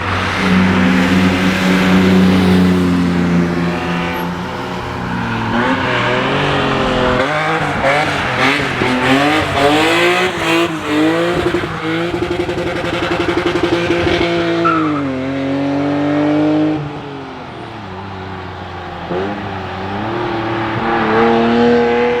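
Car engine revving hard on a wet racetrack, its pitch rising and falling with throttle and gear changes. The revs swing up and down quickly in the middle, hold a steady high note, then drop sharply about two-thirds of the way through.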